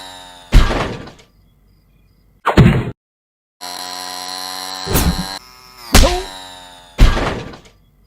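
Cartoon 'fail' sound effect: a held buzzy tone slides down in pitch, then loud thuds and crashes follow. After a short silence the tone and the crashes repeat.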